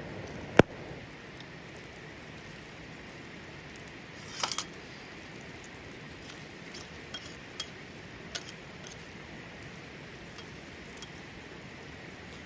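A sharp click about half a second in, then a short cluster of light clinks around four and a half seconds and a few single ticks later, over a steady hiss of rain.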